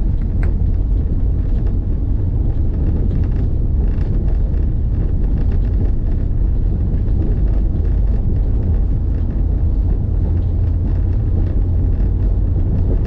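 Steady low rumble of a moving vehicle on the road, with an even noisy haze and no distinct events.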